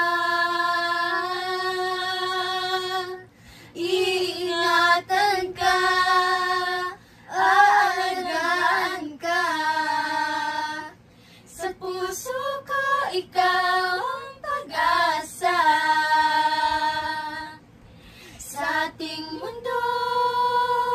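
Four girls singing a Tagalog song together, in phrases of long held notes with short breaks between them.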